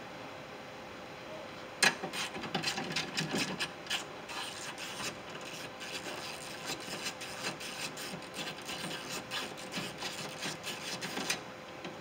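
Ratchet wrench loosening one of the 10 mm bolts on a 2005 Ford F-150's door window regulator rail, with metal rubbing against the steel door. A sharp click about two seconds in, then irregular clicking and rubbing that stops near the end.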